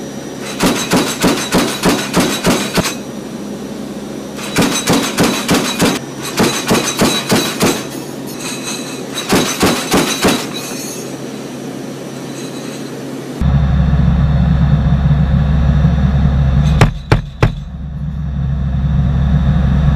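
AC-130 gunship's belt-fed autocannon firing three bursts of rapid shots, about three rounds a second. About 13 seconds in, a loud steady low drone of the aircraft's propeller engines takes over, with two sharp bangs a few seconds later.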